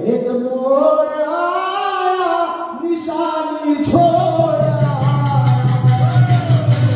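Qawwali music: a man sings a drawn-out melodic line over harmonium, and about four seconds in the dholak and percussion come in with a steady beat.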